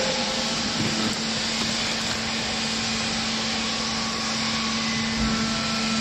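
Hydraulic clothes baler's electric motor and pump running steadily: a constant low hum over an even rushing noise, with a short low thud about five seconds in.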